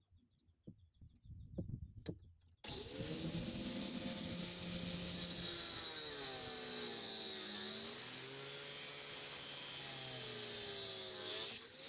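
Angle grinder on a bench-mounted stand switched on about two and a half seconds in, its motor whining at full speed. The motor's pitch sags and recovers twice as the disc is loaded, as when it bears on the work while cutting.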